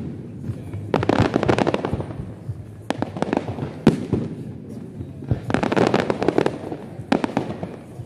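Fireworks display: aerial shells bursting with sharp bangs, and two bouts of dense, rapid crackling, about a second in and again around six seconds in.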